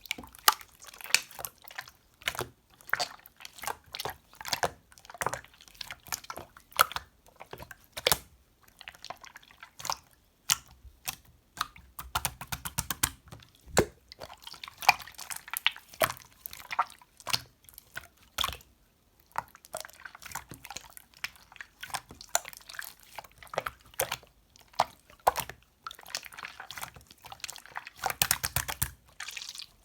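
Slime being squished and stretched by hand: an irregular run of sticky wet clicks and pops, some in quick clusters.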